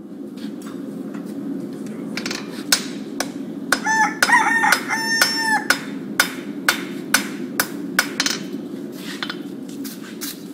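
Hand hammer striking red-hot iron on a steel anvil, roughly two blows a second from about two seconds in, over a steady low rush from the forge, as a basket twist is jump-welded into a bar. A rooster crows once about four seconds in.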